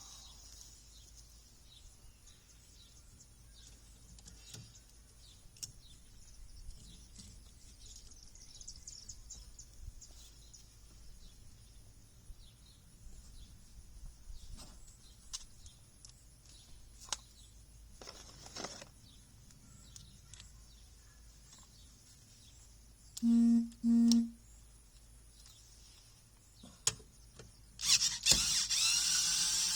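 Quiet stretches of small handling clicks while an air conditioner is being worked on. About 23 seconds in come two short, loud buzzes in quick succession. Near the end a power tool starts running loudly.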